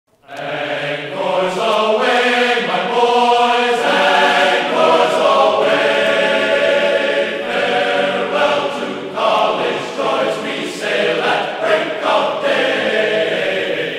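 Choral music: a choir singing sustained, changing chords.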